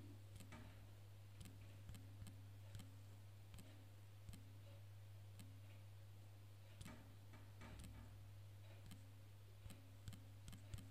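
Faint, irregular clicks of typing on a smartphone's on-screen keyboard, over a low steady hum.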